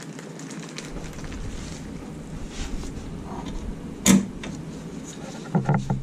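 Gloved hands handling a loom-wrapped wiring harness, with rustling and small clicks. There is one sharp click or knock about four seconds in and a quick cluster of knocks near the end.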